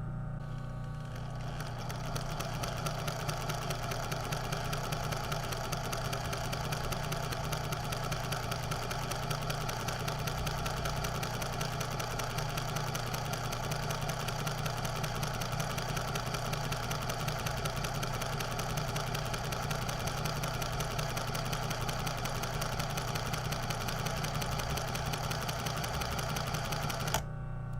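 Sewing machine running with a fast, even clatter of the needle mechanism over a low motor hum. It starts about a second and a half in and stops suddenly near the end.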